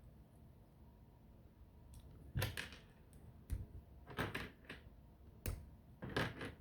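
Plastic Bionicle pieces being pulled apart and set down: a handful of short clicking rattles, with two low knocks in between.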